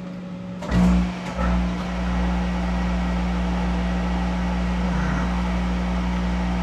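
Monarch 10EE lathe starting up under a steady drive hum: a surge of deep rumble about a second in, then the machine runs steadily with a strong steady hum.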